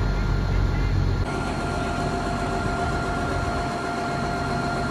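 The salvage crane's diesel engine running steadily at idle, with a thin steady whine over it. About a second in the sound changes abruptly, and the rumble becomes weaker.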